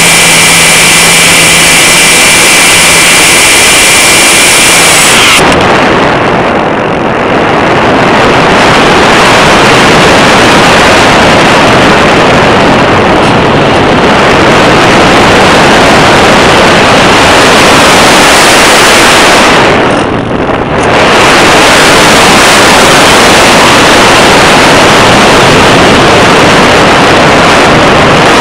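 Electric motor and propeller of an RC glider running with a steady whine, which cuts off about five seconds in. After that, loud wind rush over the onboard camera's microphone as the glider glides, dipping briefly twice.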